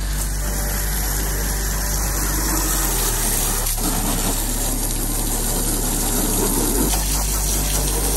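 Pressure washer running steadily: a constant pump hum under the hiss of its water jet spraying against a truck's body and the wet pavement.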